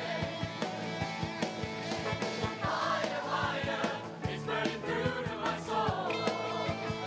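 Show choir of mixed voices singing with a band, over a steady drum beat.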